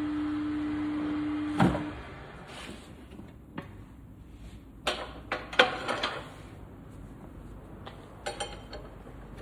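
A steady machine hum with a hiss stops with a knock about two seconds in. It is followed by scattered sharp knocks and clanks, a cluster of them in the middle.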